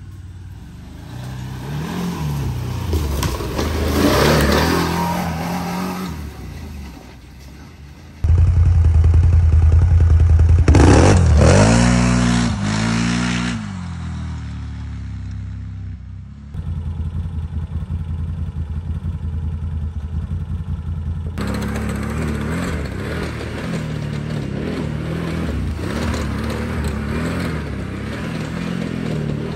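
Can-Am Renegade ATV engine revving and running under a rider, in several clips cut together, its pitch rising and falling with the throttle. The loudest part is a hard rev that climbs and drops back about halfway through.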